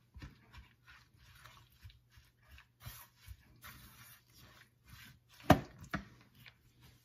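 Wooden spoon stirring and scraping through a thick mix of ground beef, onions and ketchup in a slow cooker's stoneware crock: a run of short, irregular scrapes, with two sharp knocks of the spoon against the crock about five and a half seconds in.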